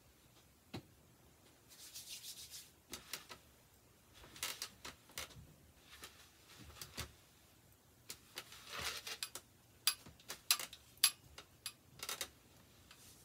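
Hands rubbing and smoothing a long wavy wig on a mannequin head, with scattered swishing rustles and a run of short clicks and taps near the end as the head is handled.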